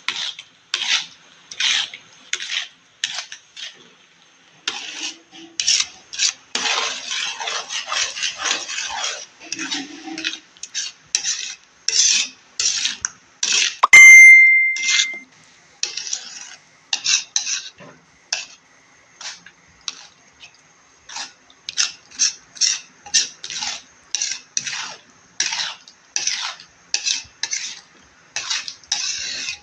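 A spoon stirring and scraping tomato spaghetti sauce in a pan, in short strokes about twice a second, with a denser run of stirring a few seconds in. About halfway through comes a single sharp clink that rings briefly.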